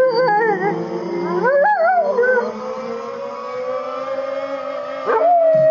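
Rottweiler howling along to a song. A wavering howl comes at the start and another about a second and a half in, then one long howl slowly rising in pitch, and a higher, steady howl begins near the end.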